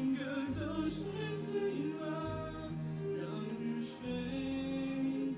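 A male vocalist singing into a handheld microphone over an instrumental accompaniment, amplified through the hall's sound system, with long held notes.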